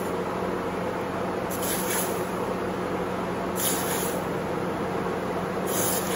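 Red-hot W1 steel stamp being quenched in a tub of water, giving three short bursts of hissing sizzle about two seconds apart as it is moved in the water, over a steady hum.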